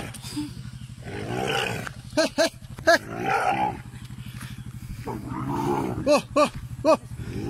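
Asian elephant calf, lost from its mother, calling again and again: short calls that rise and fall in pitch, twice in a quick cluster, with longer, lower calls of about a second between them. A motorcycle engine idles steadily underneath.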